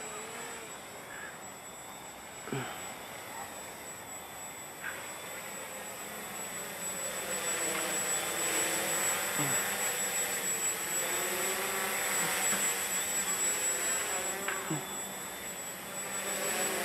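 Walkera Hoten-X quadcopter's four electric motors and propellers buzzing in flight, the pitch wavering as the rotor speeds change. It grows louder about seven seconds in as the drone comes close overhead. A few faint clicks are heard along the way.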